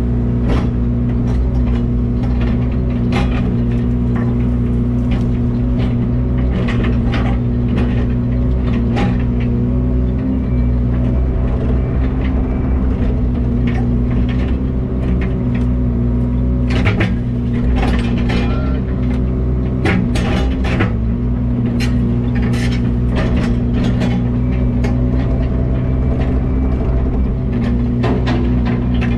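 An engine running at a steady speed, with frequent clicks and rattles over it.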